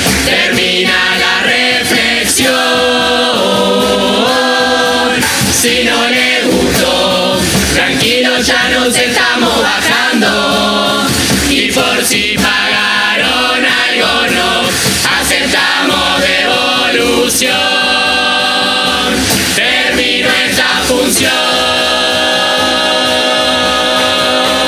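Murga chorus singing in multi-part harmony over murga percussion of bass drum, snare and cymbal, closing on a long held chord near the end.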